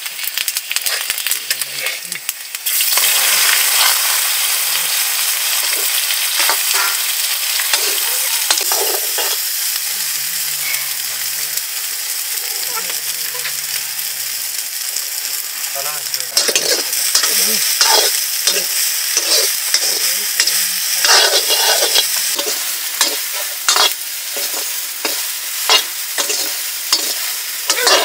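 Food frying and sizzling in a hot pan while it is stirred, with repeated scraping strokes of the stirring utensil. The sizzle gets suddenly louder about three seconds in.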